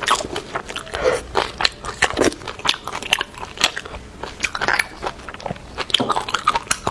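Close-miked eating of beef bone marrow: wet chewing and lip smacks in quick, irregular clicks.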